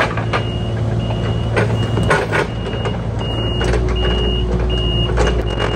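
Kubota mini excavator's diesel engine running under work, with a high beeping alarm sounding in short repeated beeps. Sharp knocks and cracks come at scattered moments.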